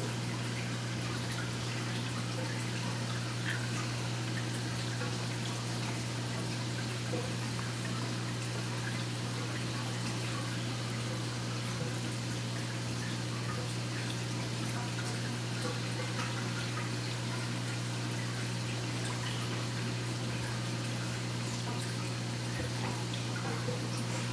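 Saltwater aquarium equipment running: a steady low hum with the trickle and drip of circulating water, dotted with faint small ticks.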